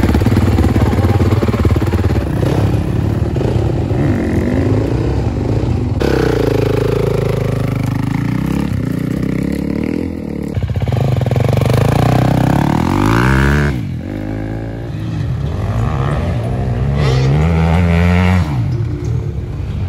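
Motocross dirt bike engines running and revving, the pitch rising and falling as the bikes pull away and accelerate, with the sound changing abruptly a few times.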